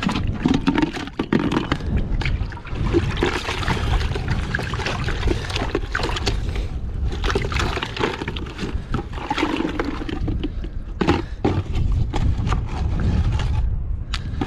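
Seawater sloshing and pouring in and around a plastic bucket as a load of cockles is dipped and rinsed in shallow water, with sharp clicks of the shells knocking together.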